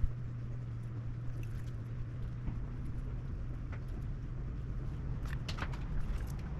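Small clicks and taps of a graphics card's parts and tools being handled during its teardown and cleaning, with a cluster of clicks about five seconds in, over a steady low hum.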